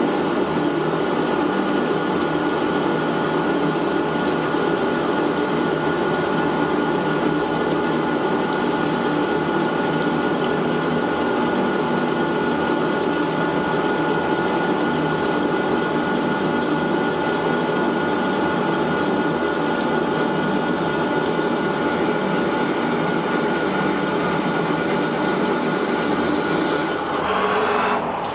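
Small CNC lathe turning a metal bar, spindle running and the cutter working under coolant: a steady machine whir with a few constant whining tones. Near the end the sound shifts and drops slightly.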